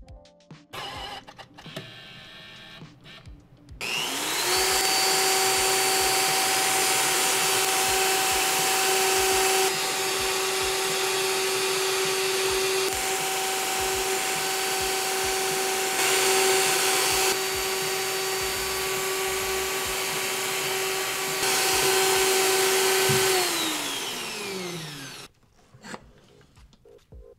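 Electric drill mounted in a drill stand spins up about four seconds in and runs at a steady high whine for about twenty seconds, with a few louder stretches, then winds down. Quieter small handling sounds come before it.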